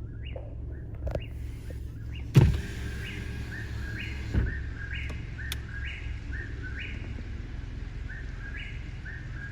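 A songbird repeating a short rising two-note call about once a second over a steady low rumble, with a loud thump about two seconds in.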